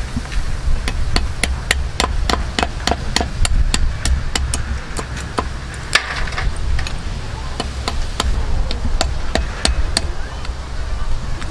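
A cleaver chopping the tips off snail shells on a thick wooden chopping block: a run of sharp knocks, about two to three a second, with the shells cracking under the blade.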